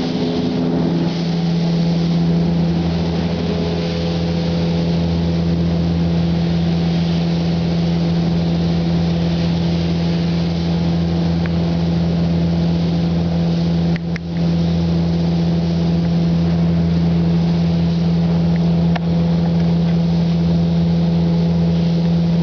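Paint-booth fans running with a steady hum under the hiss of a spray gun laying down a pearl paint coat. The hiss cuts out briefly about 14 seconds in and again near 19 seconds, as the gun trigger is let off.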